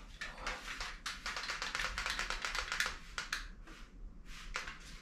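Cordless hair trimmer with a nearly flat battery working through hair, a fast, irregular crackle of clicks.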